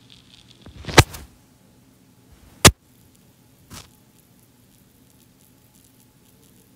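Two loud, sharp knocks about a second and a half apart, then a fainter one about a second later, over a faint background.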